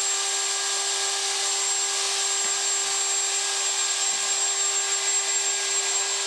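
Millright Power Route CNC router's spindle running at full speed, pretty loud: a steady whine over a high hiss that holds even throughout.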